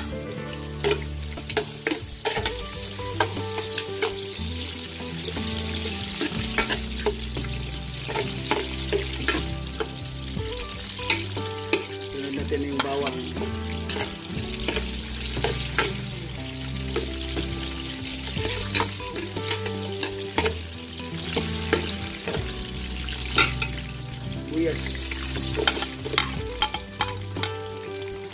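Sliced ginger, garlic and onion sizzling in hot cooking oil in a large aluminium stockpot, a steady frying hiss. A metal spoon scrapes and clinks against the pot again and again as the aromatics are stirred.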